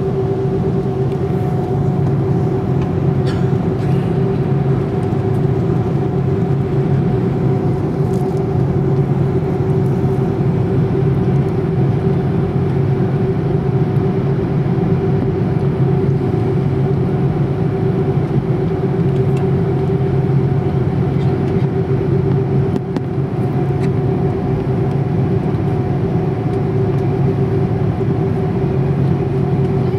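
Airbus A330-300's Rolls-Royce Trent 700 engines at ground idle, heard from inside the cabin as a steady low drone with a few held tones. The power stays level throughout, with no spool-up for takeoff yet.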